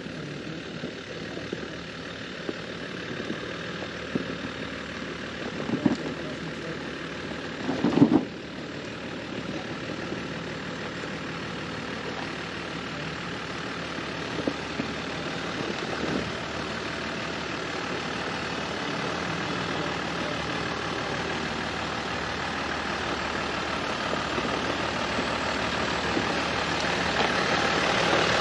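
Off-road Jeep engine running at low revs during slow trail crawling, with a few short knocks about six and eight seconds in. The engine grows steadily louder toward the end.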